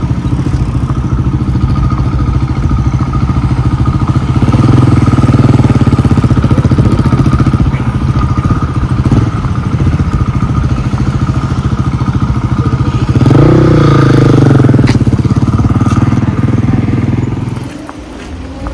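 Loud, steady road-traffic noise beside a busy street, with a motor vehicle passing louder about two-thirds of the way through; the noise drops off abruptly near the end.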